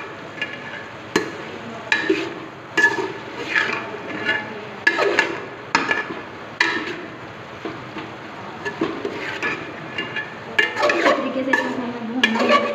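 Metal spoon stirring chopped vegetables and chicken in a metal cooking pot: irregular scrapes and knocks of the spoon against the pot's sides and bottom, coming thick and fast near the end.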